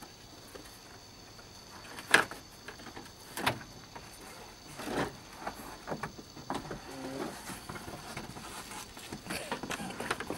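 Car headliner board being worked down from the roof, knocking and scraping against the roof and trim. A sharp knock about two seconds in is the loudest, with scattered smaller knocks and rustles after it.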